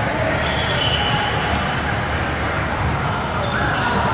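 Echoing hall noise from several volleyball games at once: indistinct voices mixed with the thuds of volleyballs being hit and bouncing on the courts.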